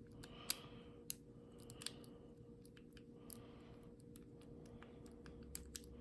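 Faint metallic clicking and scraping of a lock pick tickling the pin tumblers of an old American Black Beauty padlock under light tension, with a few sharper clicks in the first two seconds.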